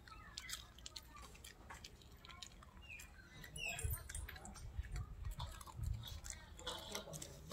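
A Pomeranian eating rice off a cloth mat: faint, irregular chewing and snapping of teeth, louder from about halfway through.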